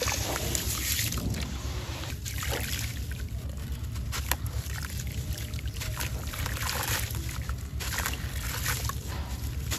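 Muddy water sloshing and trickling in a plastic tub as a wet sand-cement chunk is swished, lifted out and left dripping. Grit rubbed off the chunk patters back into the water. Small sharp splashes come throughout, the loudest about four seconds in.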